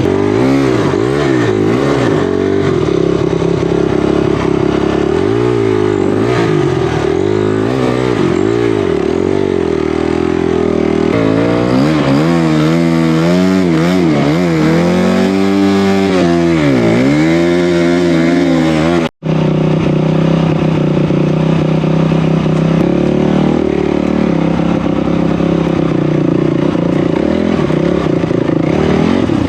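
Off-road vehicle engine running hard, revving up and down over and over as it works over rough trail for the first two-thirds. After a brief dropout it settles into a steadier, more even run.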